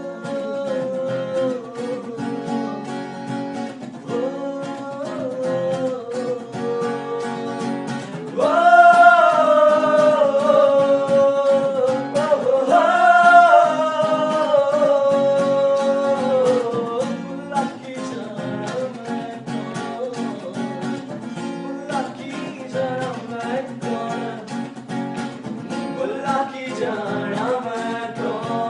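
A man singing to a strummed acoustic guitar. His voice swells into loud, long held notes from about a third of the way in until past halfway, then drops back to a softer line over the steady strumming.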